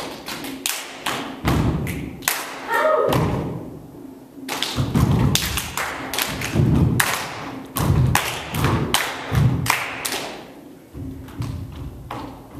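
Body percussion by a group of barefoot dancers: deep thuds of feet stamping on a wooden floor mixed with sharp claps and slaps, in an uneven rhythmic phrase.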